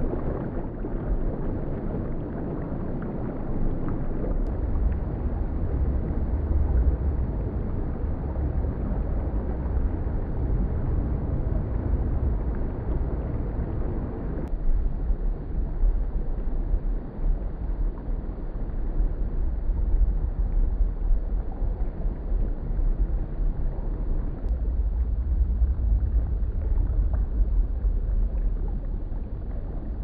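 Shallow stream flowing over stones, its sound slowed down about five times so the water becomes a deep, dull wash with no high end. The sound shifts about halfway through as another stretch of the stream takes over.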